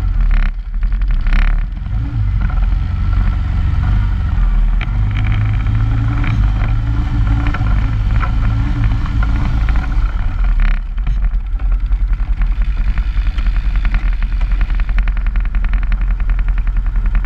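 Quad bike (ATV) engine running as it drives through powdery snow, with a strong, steady low rumble. Over the last several seconds a fast run of close-spaced ticks rides over it.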